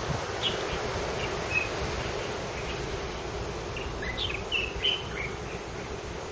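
Small birds chirping outdoors, short sharp calls about half a second and a second and a half in, then a quick cluster of calls between four and five seconds, over a steady background noise.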